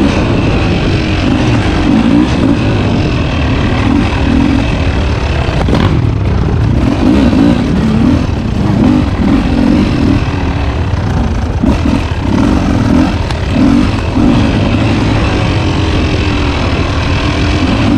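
Two-stroke dirt bike engine revving up and down as the bike is ridden off-road, its pitch rising and falling again and again.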